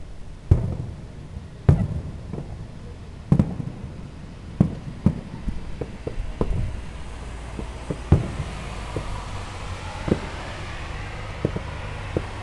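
Aerial fireworks shells bursting: a string of about a dozen sharp bangs at irregular intervals, the loudest about half a second in. A steady rushing background noise builds up beneath them in the second half.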